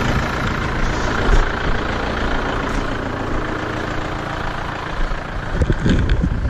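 Farm tractor engine running steadily, with irregular knocks and rattles over the last second.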